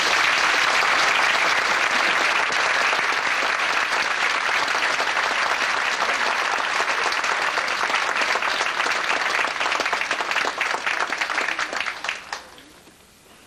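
Theatre audience applauding, a dense steady clapping that dies away near the end.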